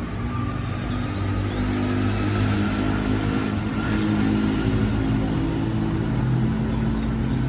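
Road traffic: a motor vehicle engine running with a steady low hum, and a faint whine that slowly rises in pitch.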